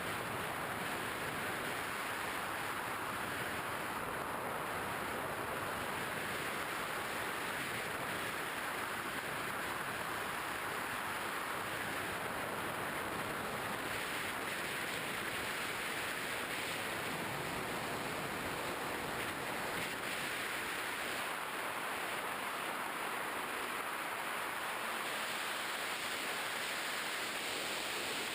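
Steady rushing noise of air streaming past an action camera mounted on an RC model plane in flight, even throughout, with no clear motor tone standing out.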